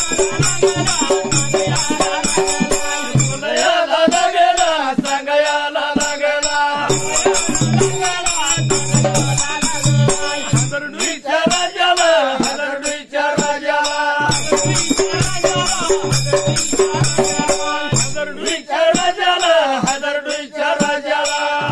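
Dhangari ovi sung by a group of men's voices in long, bending phrases, over a fast, steady clash of small hand cymbals and beats on a gaji dhol drum.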